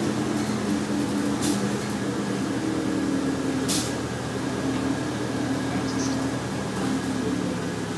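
A 1996 New Flyer D40LF bus's Detroit Diesel Series 50 engine running steadily under way, heard from inside the passenger cabin, its note shifting a few times. Two short hisses come about one and a half and nearly four seconds in.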